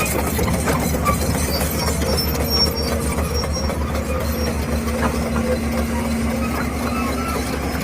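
Heavy diesel engine running steadily with a low, rapid pulsing, as from a working excavator or tractor.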